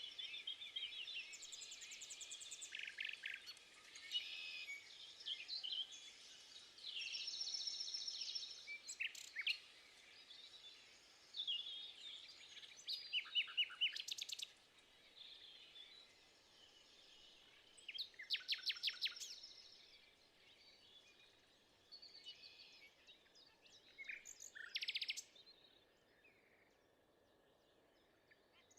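Several songbirds singing and calling, with varied chirps, whistled phrases and rapid trills that overlap one another.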